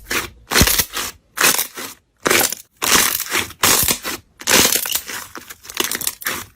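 Crunchy slime being squeezed and pressed, crackling and crunching in about nine short bursts separated by brief silences.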